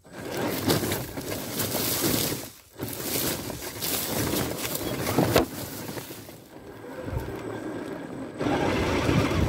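Radio-controlled crawler truck driving over dry leaves and gravel: the whir of its electric motor and gears mixed with crackling and crunching under the tyres. The sound drops out briefly about three seconds in and is quieter for a while near the end.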